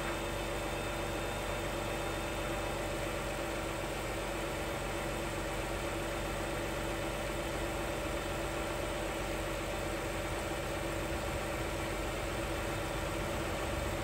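2005 Chrysler 300's engine idling steadily, an even hum with no clicks or changes.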